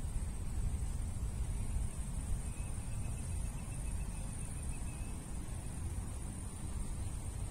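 Wind buffeting a phone's microphone: a steady low rumble with a faint hiss above it.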